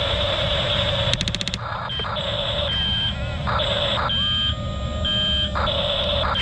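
Double E E579 RC bulldozer's electric drive motors and gearboxes whirring steadily, with a quick rattle of clicks about a second in. From about two seconds a short high beep repeats roughly once a second, like a reversing alarm.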